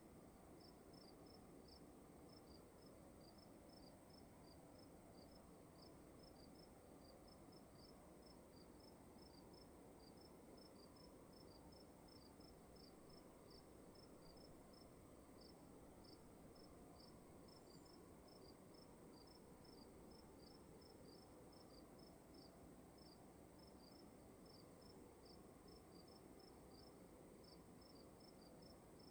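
Faint cricket chirping: a quick, regular run of short high chirps over a steady high ringing tone and a low room hum.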